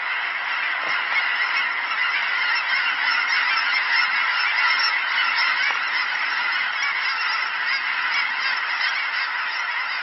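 A large flock of geese in flight, many birds calling at once in a dense, continuous din.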